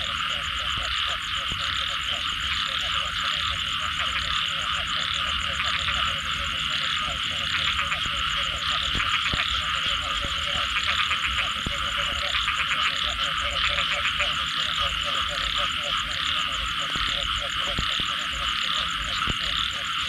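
A dense chorus of frogs calling after rain: many overlapping croaks and rapid pulsed calls at several pitches, with a fast high trill above them, unbroken throughout.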